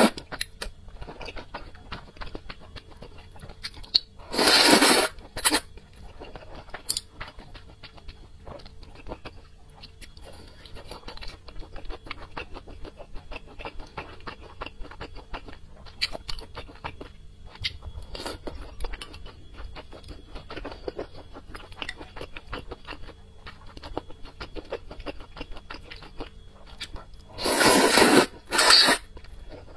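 Close-miked eating of luosifen rice noodles: soft, steady chewing with small wet clicks, broken by a loud slurp of noodles about four seconds in and two more slurps near the end.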